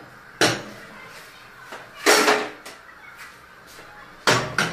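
Cooking pots and utensils being handled at the stove: a knock about half a second in, a longer clatter about two seconds in, and two quick knocks near the end.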